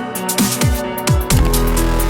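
Electronic dance music with a driving beat and deep bass notes that slide down in pitch several times.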